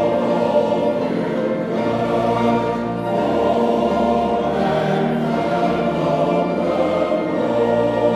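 Male voice choir singing long held chords, with deep bass voices underneath.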